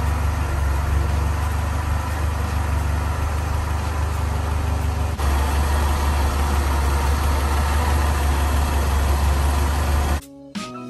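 1976 Toyota Celica's 20R four-cylinder engine idling steadily with the hood open; the sound stops near the end.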